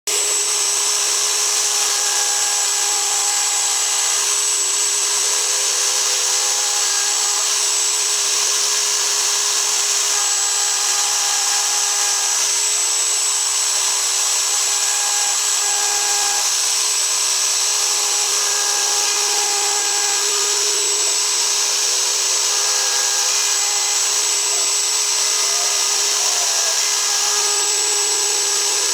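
ASIMA AR 1200 CNC router's spindle running steadily with a high whine while it cuts a die-board base, its pitch holding even throughout.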